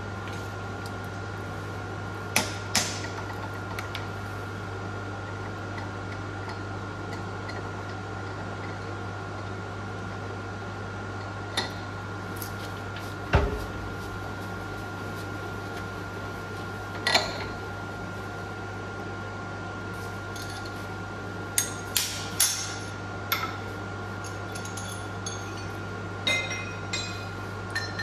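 Scattered sharp metallic clinks and knocks of steel tools and workpieces being handled on a milling machine table, one heavier thump about halfway through and a quick run of clinks in the last several seconds, over a steady machine hum.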